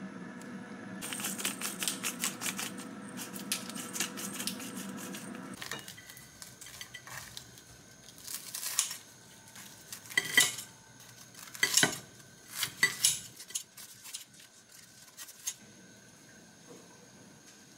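Liquid simmering and crackling in a cast-iron skillet on a gas burner for the first several seconds. After that, kitchen scissors and a knife cut through a crisp fried pork cutlet, with sharp metal clinks on a ceramic plate in a run of separate strokes.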